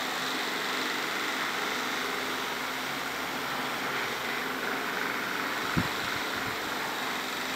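Steady whir of an electric pedestal fan, with one soft low thump about three-quarters of the way through.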